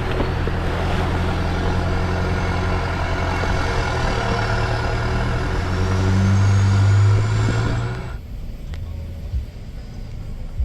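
Four-wheel-drive engine running under load with heavy tyre and track noise, loudest around seven seconds in. About eight seconds in it cuts off abruptly to a quieter, low engine rumble.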